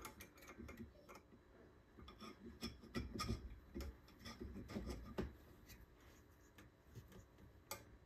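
Faint, scattered clicks and scraping of a hand tool on metal inside an electric motor's end housing, working at a rounded bolt head. The clicks bunch up between about two and five seconds in, with one sharper click near the end.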